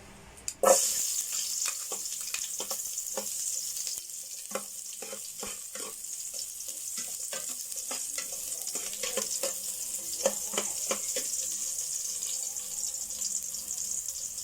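Chopped onion dropped into hot cooking oil in a pot, bursting into a sizzle about a second in, then a steady frying hiss with scattered crackling pops.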